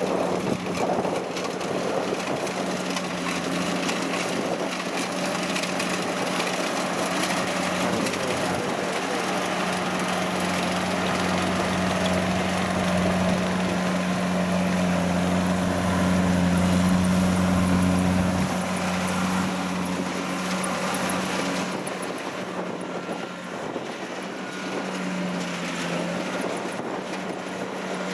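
Kubota DC-70 combine harvester's diesel engine running steadily with its threshing machinery, harvesting rice. A low part of the hum drops away about two-thirds of the way through, and the sound gets a little quieter after that.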